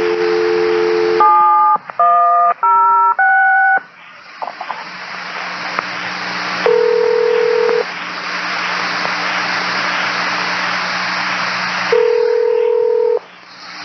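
Telephone patch over a two-way railroad radio: a steady dial tone, then four touch-tone digits dialed, then open-channel radio hiss with two ringback tones about five seconds apart.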